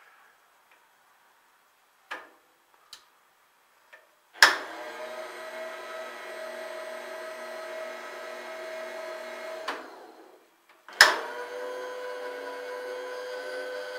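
Electric power feed motor on a Warco Major GH milling machine's table switching on with a click and running with a steady whine as the table traverses, stopping about five seconds later, then clicking on again and running at a slightly lower pitch. A few faint clicks come before the first start.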